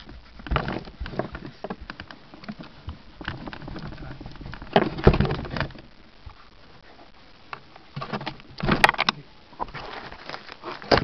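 Irregular knocks, scrapes and rustling of handling noise on the wing-mounted camera, with the loudest bursts about five and nine seconds in; no engine is running.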